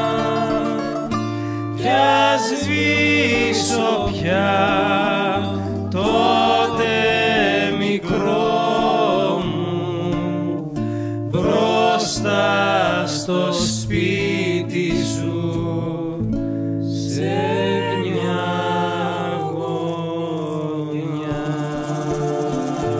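Greek rebetiko song played live: sung phrases with vibrato over acoustic guitar and bouzouki, with a low steady bass line underneath.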